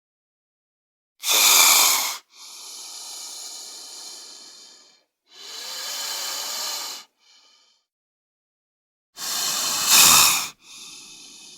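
Snake hissing: a series of separate long hisses broken by short silences, with two sharper, louder blasts about a second in and about nine seconds in.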